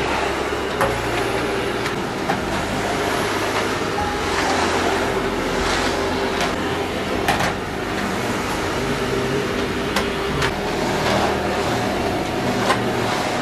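Canister vacuum cleaner running steadily as its floor head is pushed back and forth over a hard floor and rug, with occasional sharp clicks and knocks as the head bumps about.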